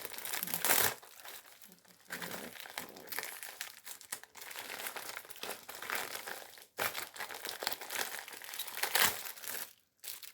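Packaging crinkling and rustling as a small mail package is handled and opened by hand, with louder crackling bursts near the start and again about nine seconds in.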